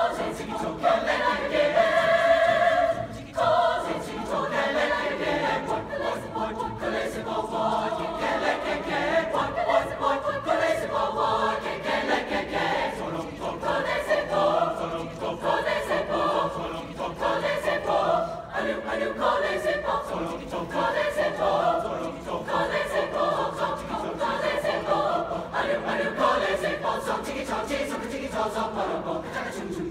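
Mixed high-school concert choir of men and women singing together under a conductor, a chord held for about two seconds near the start and then moving phrases.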